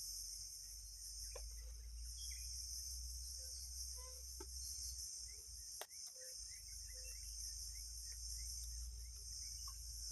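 Steady chorus of crickets, a high pulsing drone with small chirps scattered through it. One sharp click comes about six seconds in.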